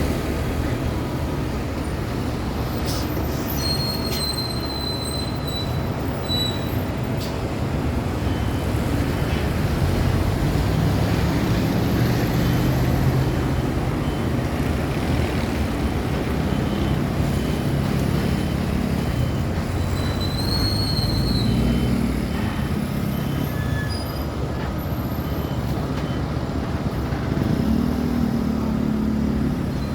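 Steady road traffic: engines of passing cars, trucks and motorcycles running together, with the low engine notes of heavy trucks rising and falling. Brief high-pitched squeals cut through about four seconds in and again around twenty seconds in.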